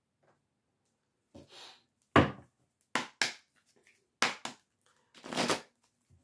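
A deck of oracle cards being shuffled and handled: a string of sharp snaps and short swishes starting about a second in, the last swish longer.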